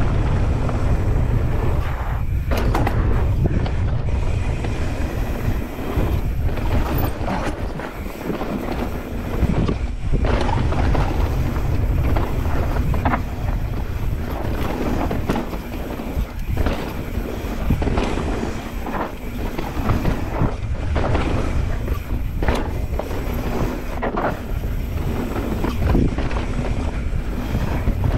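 Mountain bike descending a dirt trail at speed: wind buffeting the microphone with a heavy low rumble, tyres running over the ground, and frequent short knocks and rattles from the bike.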